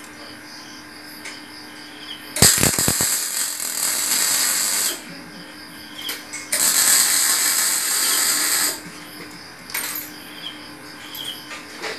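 Electric arc welding on a steel chair frame: two spells of crackling hiss, each about two seconds long, the first starting with sharp crackles a couple of seconds in. A steady low hum runs through the gaps between them.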